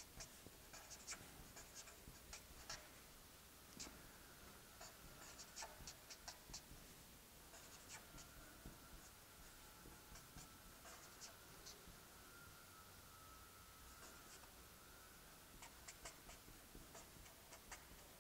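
Faint marker pen writing on a sheet of paper: short, irregular strokes and taps as letters and symbols are written, thinning out for a few seconds in the middle.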